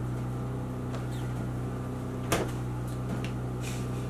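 Steady low hum in a small room, with one sharp knock a little past two seconds in.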